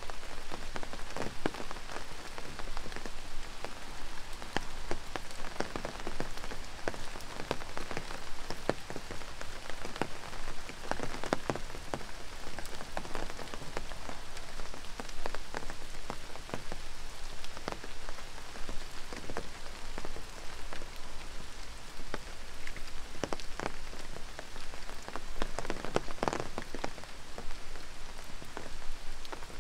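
Steady rain falling, with many single drops tapping close by and a few denser clusters of louder drips.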